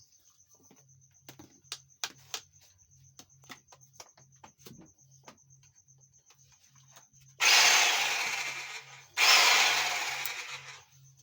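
Prithvi Premium PPR 17 1280-watt electric demolition hammer switched on twice in short test runs, each about a second and a half, starting abruptly and dying away as it is released, after a few faint handling clicks.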